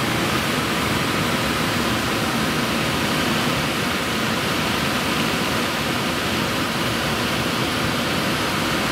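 Steady rush of air streaming over an engineless glider's canopy and fuselage at high speed as it dives down the back of a wingover.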